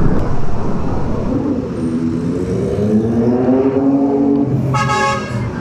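Motorcycle riding in heavy traffic among trucks: a steady engine and road rumble, with an engine note rising in pitch through the middle as it accelerates. A vehicle horn sounds once, briefly, near the end.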